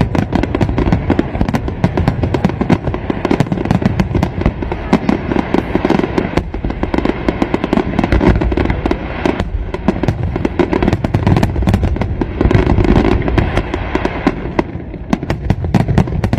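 Fireworks display: aerial shells bursting in a dense, continuous barrage of overlapping bangs and crackles with no pause.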